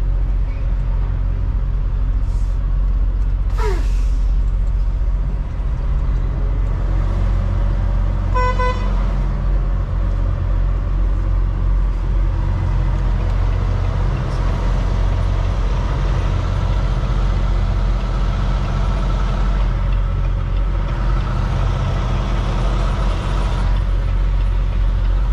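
Semi-truck diesel engine running steadily, heard from inside the cab as the truck creeps around the yard. A short, high horn-like toot sounds once about eight seconds in.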